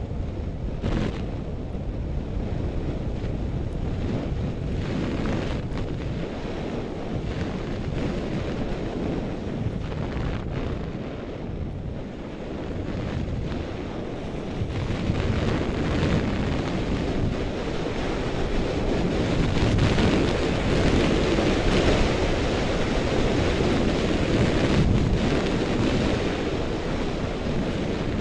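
Wind rushing over a goggle-mounted action camera's microphone during a downhill ski run, mixed with the hiss of skis sliding on packed snow. It grows louder from about halfway through.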